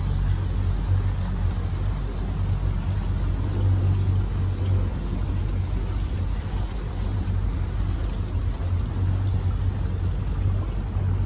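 Pontoon tour boat's motor running steadily under way: a steady low hum, with water washing along the hull and in the wake.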